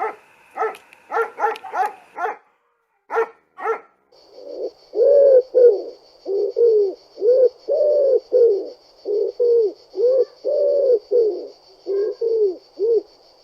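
Bird calls: a few short calls in the first few seconds, then from about four seconds in a long run of short, low calls that each rise and fall, with a faint steady high pulsing sound behind them.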